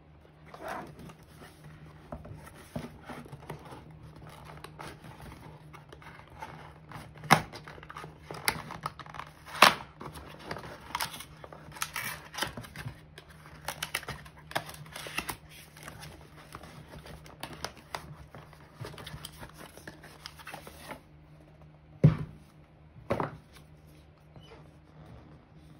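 Cardboard shipping box being handled and torn open by hand: continual rustling, scraping and clicking of the cardboard, with a few sharp knocks about seven, ten and twenty-two seconds in.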